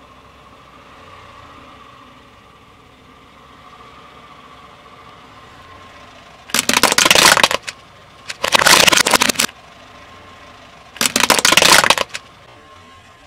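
Small plastic toy airplanes crunching and cracking under a car tyre as it rolls over them: three loud crackling crunches of about a second each, the first starting about halfway in, the last near the end.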